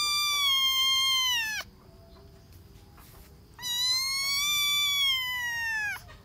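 Young kitten meowing: two long, high-pitched meows of about two seconds each, each dropping in pitch at the end, with about two seconds of quiet between them.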